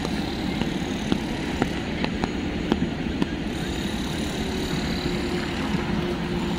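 Steady city street noise of traffic in the rain, with light taps about twice a second and a faint steady hum coming in about four seconds in.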